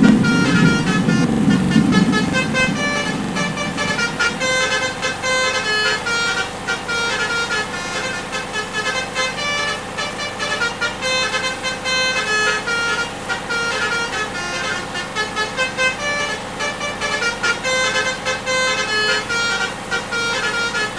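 Bus 'telolet' basuri musical air horns playing a melody of short, stepped multi-tone notes. A low engine rumble underneath fades out about four seconds in.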